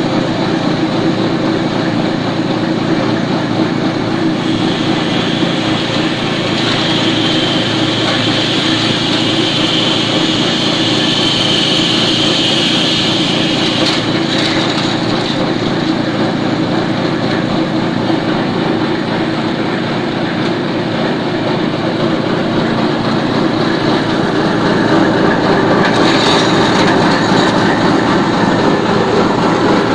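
Small petrol engine driving a mini compost shredder at a steady running speed, with its blades chopping green plant stalks fed into the hopper. A higher rasp of shredding is strongest from about four to fourteen seconds in.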